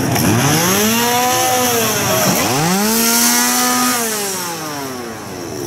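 Gas chainsaw revved twice: the engine speed climbs and holds high, dips briefly, climbs and holds again, then slowly winds down.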